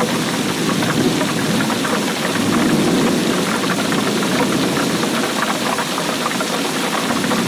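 Heavy rain falling, a dense steady patter with a low rumbling undertone.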